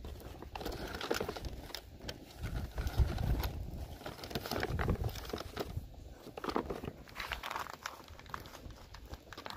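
Foil ration packets crinkling and rustling as they are handled, with many irregular crackles.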